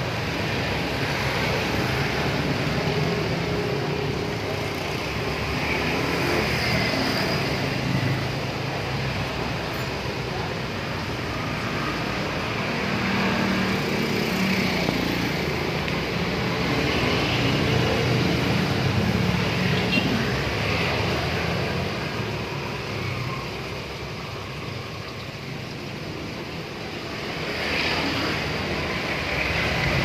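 Steady background noise with a low rumble, like distant road traffic, easing slightly for a few seconds toward the end.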